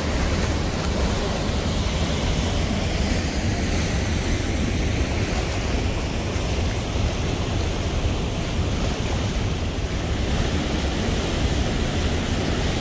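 Fast water rushing steadily, pouring down a concrete spillway chute and churning along a concrete channel.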